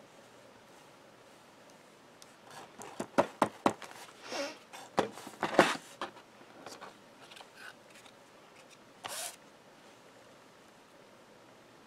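Paper-crafting handling noise: a run of small clicks and taps with paper rustling a few seconds in, as a plastic glue bottle is put down, then a short papery rustle around nine seconds in as a glued cardstock grill piece is laid onto a card front.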